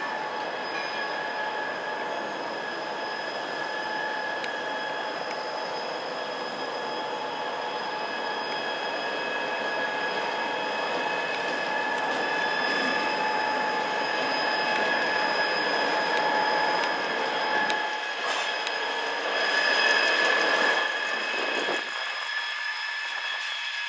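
CSX diesel locomotive rolling slowly past with its engine running and a steady high-pitched squeal of wheels on the rail over the rumble, growing louder as it comes near and loudest as it passes close, just before the end.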